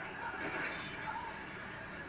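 Soundtrack of a television sitcom playing, with a brief noisy swell about half a second in and no dialogue.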